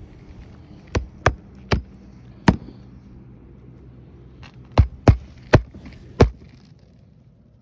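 Hammer driving roofing nails through asphalt shingles by hand: eight sharp blows, four in a quick run, then after a pause of about two seconds another four.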